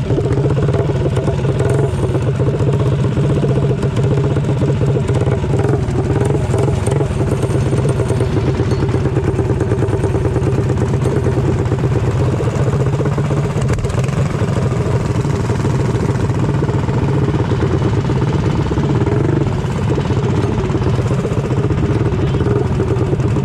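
Small single-cylinder mini bike engine running steadily and loud throughout, with little change in pitch or level.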